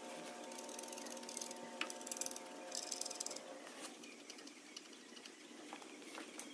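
Light metallic clicking and rattling as the clutch cover bolts are nipped up onto the tractor's flywheel with a hand tool. The clicks come in short clusters in the first half, with a few single clicks later. A faint steady hum underneath stops about halfway through.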